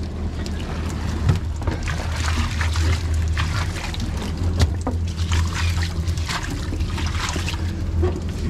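Live pilchards flopping and slapping on a fiberglass boat deck, an irregular run of small sharp taps and wet slaps as they are gathered into the livewell. Underneath is a steady low hum and trickling water.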